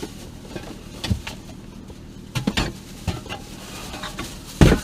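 Aerosol cans of throttle-body cleaner being picked up off the car floor: a few hollow knocks and clunks, the loudest near the end, over the low steady hum of the engine idling in park.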